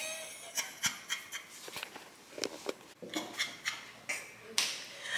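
Scattered light taps and rubbing as a toddler handles a microfibre cloth on a laminate floor, with a short breathy rush near the end.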